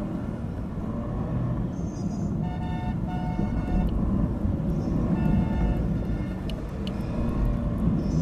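Road traffic rumbling steadily, with vehicle horns honking several times: two honks in quick succession about two and a half seconds in, another about five seconds in, and shorter higher beeps between.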